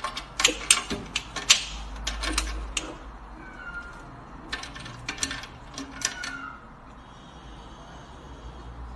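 Key and lock on a wire cage door clicking and rattling as a cat paws and bites at it: a cluster of quick metallic clicks over the first three seconds, then another about five to six seconds in.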